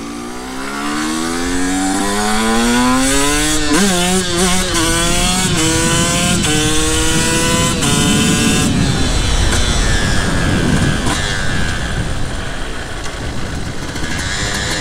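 Single-cylinder two-stroke engine of a 2023 Sherco 125 Factory supermoto pulling hard through the gears. Its pitch climbs for about four seconds, then drops and climbs again at several quick upshifts. After about nine seconds the note turns rough and unpitched for a few seconds, and a steady tone returns near the end.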